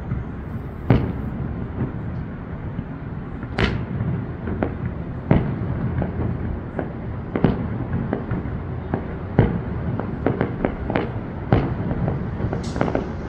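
Fireworks display: shells bursting in irregular loud bangs over a continuous low rumble, the bangs coming closer together in the last few seconds.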